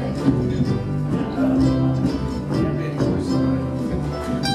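Acoustic guitar strummed in a steady rhythm, playing the chords of a folk song.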